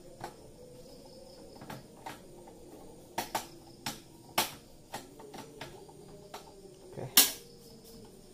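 Irregular sharp clicks and knocks, about a dozen, from computer hardware being handled and fitted by hand; the loudest comes about seven seconds in.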